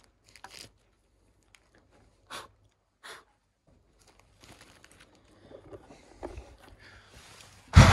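Plastic zip-top bag crinkling and rustling in short, scattered bursts as it is handled and closed. Near the end comes a loud, brief thump.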